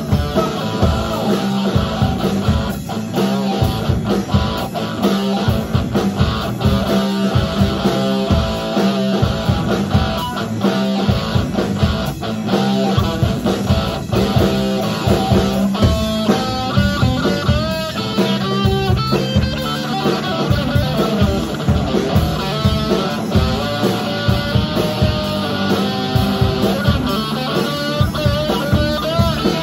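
Live rock band playing loudly: electric guitars over a drum kit. From about halfway, a guitar plays wavering, bending lead notes.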